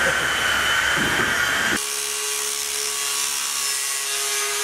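Angle grinder running on the top of an aluminum box-section stanchion: a steady whine with hiss. In the first couple of seconds a different, higher steady whine is heard, and it gives way abruptly to the grinder.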